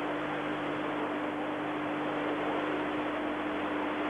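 Steady stadium crowd murmur and hiss on an old television broadcast recording, with a constant low hum running under it.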